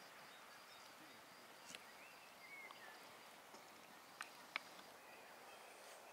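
Near silence with faint outdoor ambience and a brief bird-like chirp, then two light sharp clicks a little after four seconds in, as a wooden spoon taps against a clay bowl.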